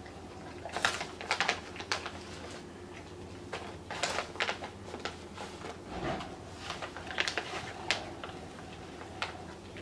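Irregular crinkles and clicks as a bag of small dog treats is handled and treats are handed out, with dogs crunching them. A dishwasher hums steadily underneath.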